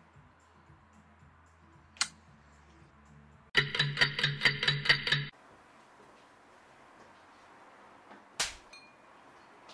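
An alarm rings loudly in rapid pulses, about five a second, for just under two seconds, then cuts off suddenly. Later a single sharp clink of a metal spoon against a ceramic bowl.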